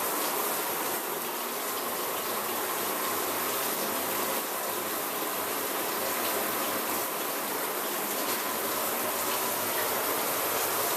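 Waterpik NSL-653 handheld shower head spraying water in a steady rush. Its pressure is soft, by the owner's account, after six months of use without the flow regulator.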